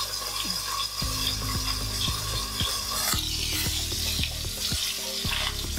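Chicken thighs frying skin-side down in an iron frying pan, sizzling steadily with frequent small crackles as the skin is cooked crisp.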